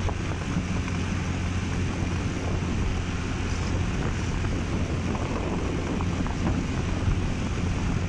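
Motorcycle engine running steadily as the bike rides along, with wind rushing over the microphone.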